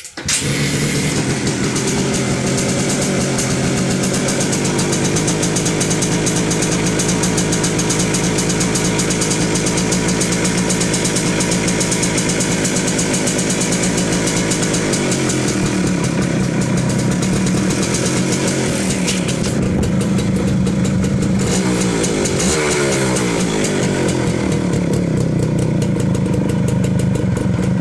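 Suzuki Max100R's single-cylinder two-stroke engine running at idle through its stock TVS Max100 catalytic-converter silencer, heard close at the silencer outlet. The throttle is blipped a few times in the second half, the pitch rising and falling, before settling back to a steady idle.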